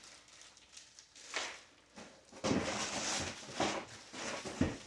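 A bag rustling and items being handled as they are pulled out of it. It is faint at first, louder from about halfway, with a low knock near the end.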